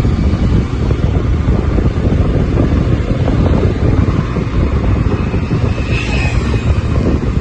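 Wind buffeting the microphone of a camera on a moving two-wheeler, a loud, steady rumble with the engine and road noise underneath.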